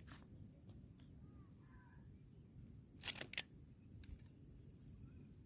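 Quiet outdoor background with a few faint, short bird chirps, then a brief cluster of sharp clicks about three seconds in.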